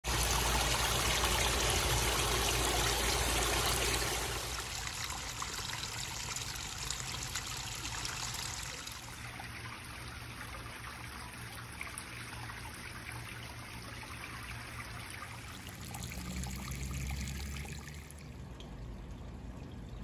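Water trickling and splashing over natural stones into a garden fish pond, the sound of a small rock waterfall. Loudest for the first four seconds, then quieter, shifting in level a few times.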